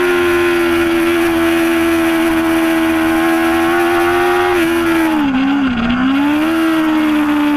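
2005 Yamaha R6's inline-four engine running at high revs through a long corner, its pitch sagging slowly, then dipping and wavering about five seconds in before rising again and holding steady.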